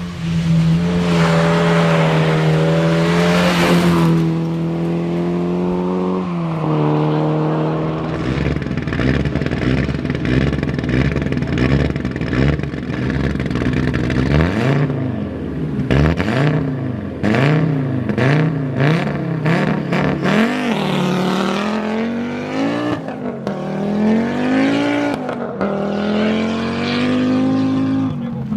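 Rally car engine at high revs, held steady at first, then rising and falling in pitch about once a second as the throttle is worked and gears change, before climbing again near the end.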